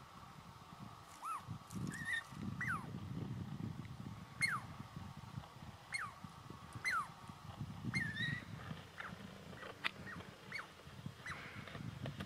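A squirrel giving about a dozen short, sharp calls at uneven intervals, each dropping quickly in pitch, over a low rumbling noise.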